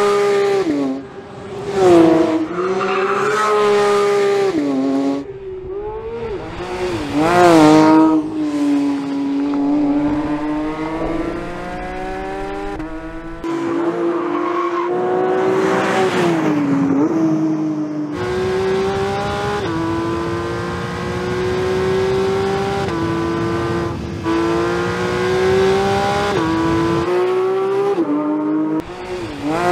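Porsche 911 GT3's 4.0-litre naturally aspirated flat-six driven hard on track, first the 992.1 and then the 992.2 generation. The engine note climbs high through the revs and drops sharply at each gear change, over several runs.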